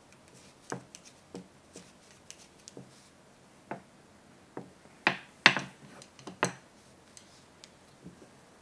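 Wooden knitting needles clicking and tapping against each other as stitches are knitted, with yarn rustling. A few louder sharp knocks come about five to six and a half seconds in.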